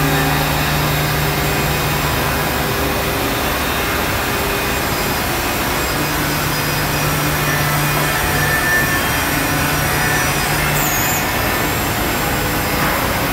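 Holztek Tectra 328 CNC panel saw running while sawing a wood panel, a steady loud machine noise. A low hum under it drops out about two seconds in, comes back about six seconds in and stops again near the end.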